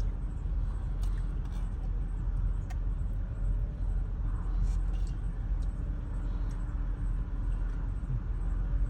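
Ford Transit Connect engine idling, a steady low rumble, with a few faint ticks over it.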